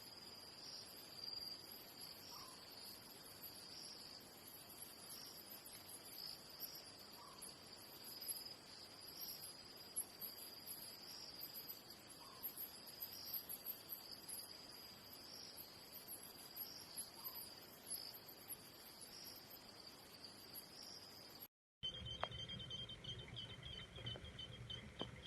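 Insects trilling steadily at a high pitch, faint, with a soft short call repeating about every five seconds. About 22 s in, a sudden cut brings a different, faster pulsing chirp over a low rumble.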